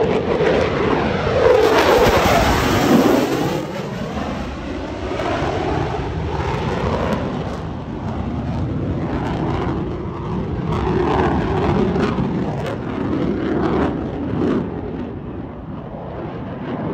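Fighter jet engines roaring on a low pass. The roar is loudest in the first few seconds, where its pitch sweeps down as the jet goes by, then carries on as a steadier, slowly fading roar as the jet climbs away.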